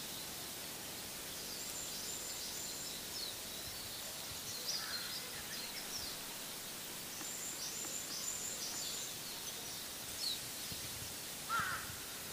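Small birds chirping now and then over a steady high hiss of outdoor ambience, the calls coming in short high runs, with a single lower call near the end as the loudest sound.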